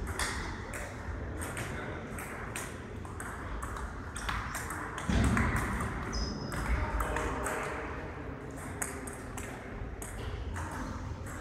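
Table tennis ball clicking off bats and the table in a rally, many short sharp hits, with a heavier thump about five seconds in.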